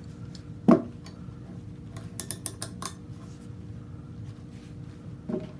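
A dull knock, then a quick run of about six sharp clicks from a ratcheting wire crimper as a heat shrink butt connector is loaded and held in its jaws, over a low steady hum.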